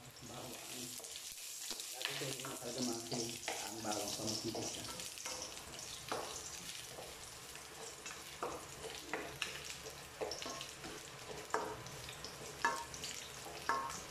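Whole garlic cloves sizzling in hot oil in a nonstick wok, stirred with a slotted spatula that scrapes and taps against the pan, with a few sharper knocks near the end. The garlic is browning in the oil.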